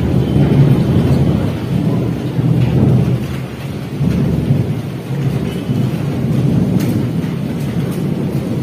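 Heavy rain pouring down with a long, rolling rumble of thunder that swells and fades without a break.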